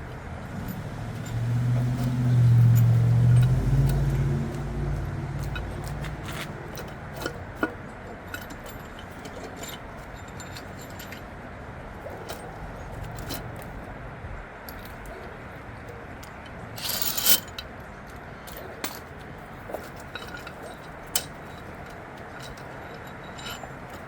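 Scattered metallic clinks, knocks and scrapes of tools and engine parts as a cylinder head is worked loose from the block over a sticking head gasket, with a louder clatter a little past the middle. A low hum rises for a few seconds near the start.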